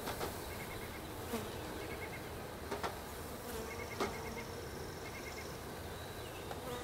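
Swarm of honey bees buzzing steadily as a package of bees is shaken out into a hive body, with about four sharp knocks from the wooden package box being jolted.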